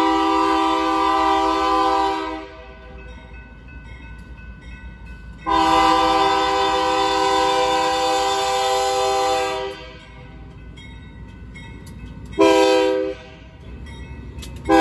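Locomotive air horn on a BNSF Dash 9 blowing the grade-crossing signal. A long blast ends about two seconds in, a second long blast lasts about four seconds, then comes a short blast, and the final long blast begins at the very end. Between the blasts the locomotive's diesel rumbles low as it draws near and passes.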